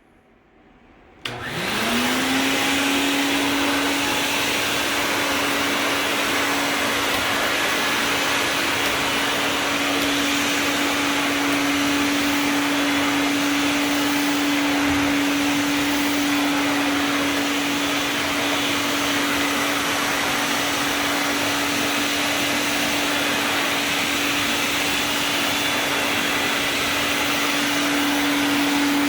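Vacuum cleaner switched on about a second in: its motor spins up with a rising whine, then runs steadily, a loud hum under a broad airy hiss.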